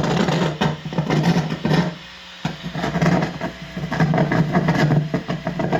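Crackling, sputtering static over a steady low electrical buzz from a radio-frequency receiver's speaker, picked up through an auxiliary cord touched to a wall. It breaks off briefly about two and a half seconds in, and the owner takes the sputtering for people laughing.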